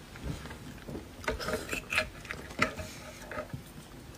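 A metal spoon scraping and clicking against a split (canoe-cut) roasted beef marrow bone as marrow is scooped out: a string of small, irregular clicks and scrapes.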